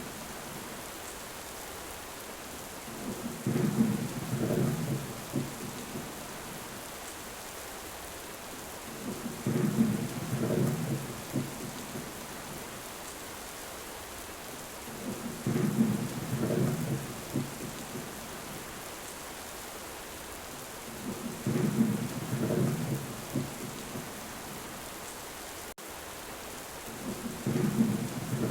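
Steady heavy rain with rolling thunder. Five low rumbles of about two seconds each come at even intervals of roughly six seconds.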